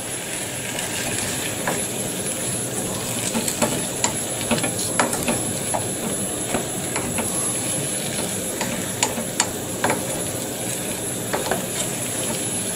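A wooden spatula stirring bamboo shoots and water chestnuts in a saucepan, scraping and tapping irregularly against the pan over a steady hiss as they cook.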